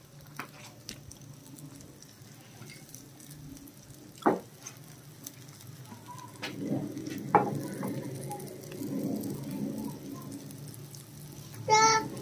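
Oil sizzling and crackling around a thin rice-flour roti frying in a non-stick pan, with a few sharp clicks. The crackle grows louder about halfway through. A brief pitched sound cuts in near the end.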